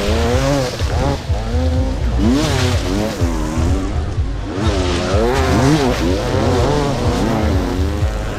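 Motocross bikes racing, several engines overlapping and rising and falling in pitch as the riders open and close the throttle.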